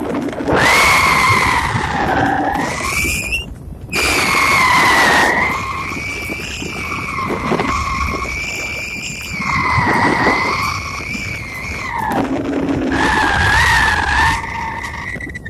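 Wind whistling over the microphone of a handheld camera while airborne under a parasail: a loud, high, slightly wavering whistle with a weaker lower tone over rushing air, dropping out briefly twice.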